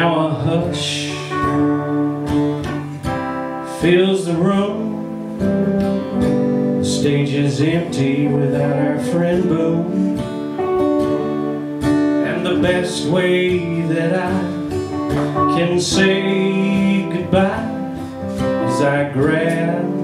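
Acoustic guitar strumming a country-style song together with an electric lead guitar playing melodic lines with bent notes.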